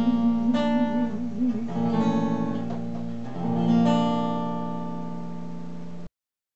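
Archtop acoustic guitar playing the closing chords of a slow country ballad. A few strummed chords lead to a final chord about four seconds in that rings and fades, and then the sound cuts off abruptly near the end.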